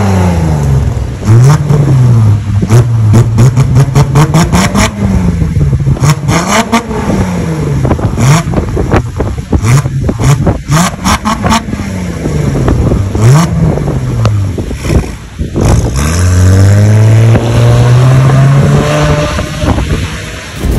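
Mercedes-Benz E350's naturally aspirated 3.5-litre V6 revved again and again, pitch climbing and falling, through an exhaust with the catalytic converters removed and the stock mufflers rebuilt inside for a louder note, with bursts of sharp crackle as the revs drop. Near the end the engine pulls with a steadier, slowly rising note as the car drives off.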